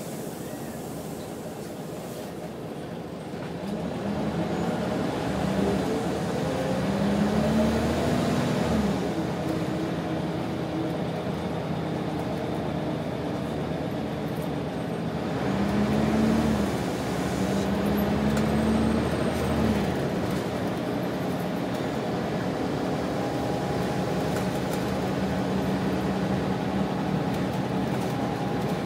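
Scania engine of a Wright Solar single-deck bus, heard from inside the saloon, pulling away twice, about four seconds in and again about fifteen seconds in. The engine note climbs and falls away at each gear change. Between and after, it runs steadily at cruise with road noise.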